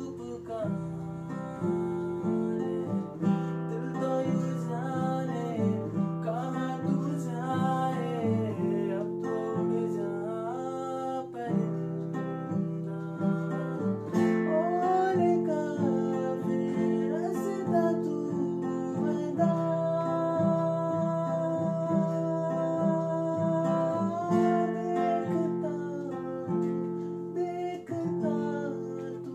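A man singing to his own strummed acoustic guitar. His voice glides between notes and holds one long note about two-thirds of the way through.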